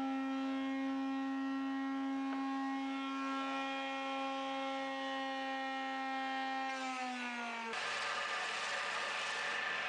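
Electric motor running at a steady speed with a strong hum, then slowing with a falling pitch about seven seconds in. A noisier, hissing machine sound with a lower hum follows.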